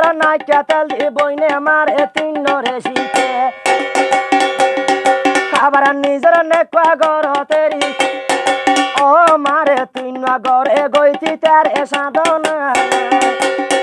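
Bengali jari folk song: a man sings a wavering melody over steady held instrumental chords and fast, busy percussion.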